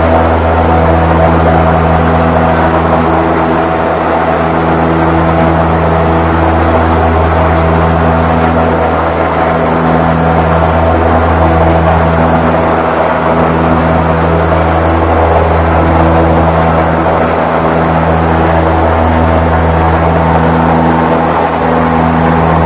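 Steady drone of a Goodyear blimp's piston engines and propellers, heard from inside the gondola cabin: a loud, low hum with a few steady pitch lines above it and slight swells in level every few seconds.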